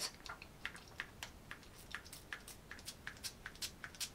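Pump of a Sukin hydrating mist toner spray bottle pressed over and over, a faint short spritz about three times a second. The pump is giving a weak spray and has yet to prime properly.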